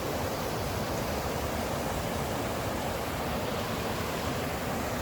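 Steady rushing of a mountain creek's flowing water.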